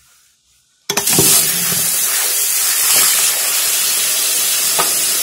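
Water suddenly turned on about a second in, running hard and steadily from a bathroom tap or shower as a loud, even hiss of spray.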